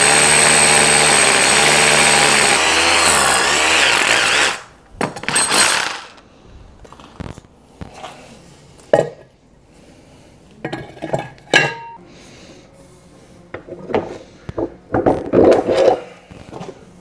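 Cordless drill running under load, boring into a wooden scaffold plank, its motor pitch wavering; it stops abruptly after about four and a half seconds. Scattered knocks, taps and clinks of handling a metal plate and the plank follow.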